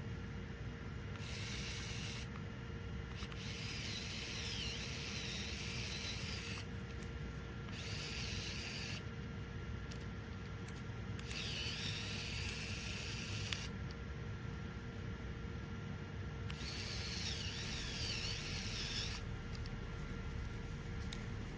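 Mini electric screwdriver motor running in about five short bursts, each one to three seconds, with a high wavering whine, over a steady low background hum.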